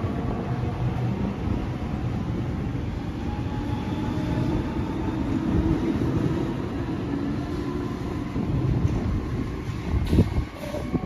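Sydney Trains electric suburban train pulling out of the station: a steady rumble with the traction motor whine rising in pitch as it accelerates away, and a few sharp knocks from the wheels near the end.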